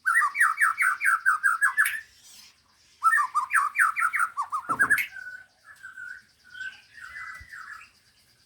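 Caged songbird singing: two loud bursts of rapid repeated notes, about five a second and two seconds each, then softer short warbled phrases.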